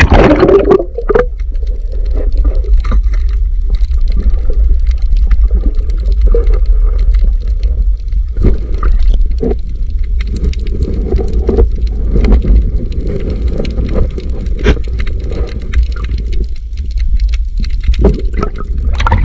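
Sea water heard from underwater: a muffled, steady low rumble with bubbling gurgles and scattered small clicks and knocks. At the start there is a loud rush as the microphone goes under the surface.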